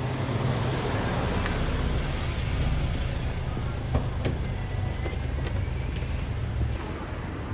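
Steady low rumble of a moving vehicle, with a couple of light clicks about four seconds in.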